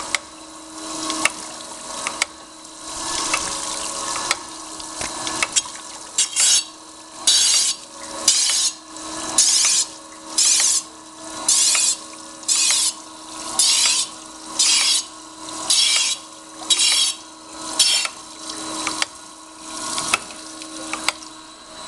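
Herless surface grinder's wheel hissing against the workpiece in short, regular bursts about once a second as the hydraulic table carries the part back and forth under it, over a steady machine hum. The bursts begin several seconds in and fade out near the end. The wheel is only catching a last high spot as the surface comes flat.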